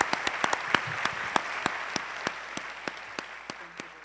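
Audience applauding, the clapping thinning and fading away toward the end.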